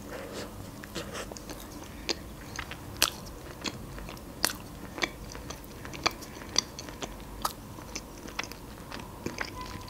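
Close-up sounds of a person biting into and chewing an iced cinnamon roll, with sharp irregular mouth clicks and smacks every half-second to second.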